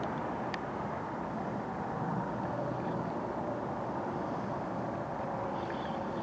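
Cessna 172 Skyhawk's piston engine and propeller droning steadily on landing approach, heard from a distance.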